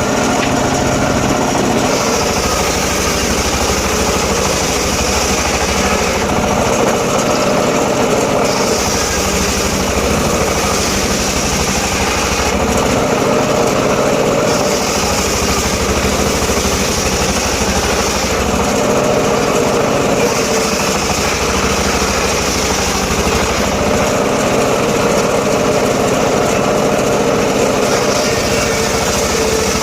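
Engine-driven mobile circular saw running continuously while cutting teak wood. A high hissing cutting sound comes and goes in stretches of a few seconds over the steady engine hum.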